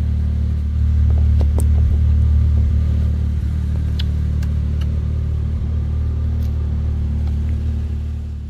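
Steady low motor hum with a few faint clicks, fading out near the end.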